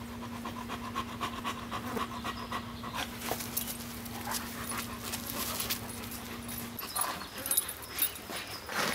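German shepherd panting rapidly and rhythmically, open-mouthed. A few sharper clicks come near the end.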